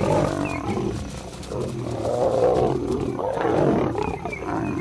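Lionesses and a male lion fighting, snarling and roaring at each other, their calls overlapping without a break.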